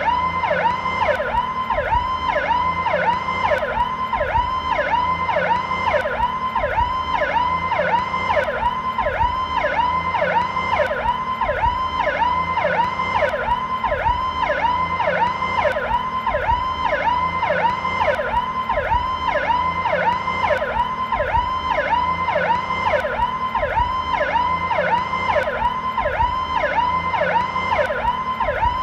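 American police car's electronic siren sounding the Powercall tone, slowed down: a wail that drops in pitch and springs back up, repeating evenly about one and a half times a second.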